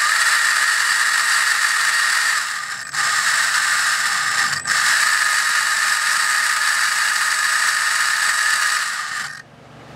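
ORCA Blitreme 3 brushless RC motor spinning a load motor through a 41-tooth gear on a test dyno, a loud steady whine with gear noise during an automatic motor test run. It dips briefly twice, about two and a half seconds in and near the middle, and stops about nine and a half seconds in.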